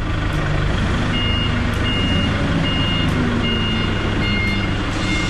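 A vehicle's reversing alarm beeping at an even pace, about once every 0.8 s, starting about a second in, over a steady engine running.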